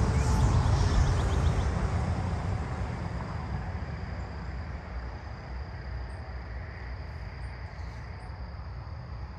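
A low rumble that fades away over the first three seconds, leaving a faint, steady outdoor background.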